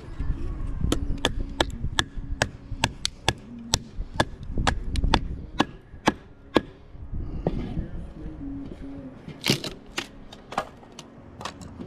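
Hatchet chopping kindling from a split log: sharp wooden knocks about three a second, a short pause, then a few louder strikes near the end.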